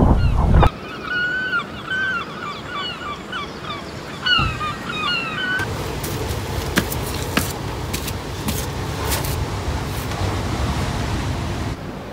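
Wind and surf for a moment at the start, cut off abruptly, then a gull calling over and over in short, pitched, honking cries for about five seconds. After the calls stop there is a steady low outdoor background with a few light knocks.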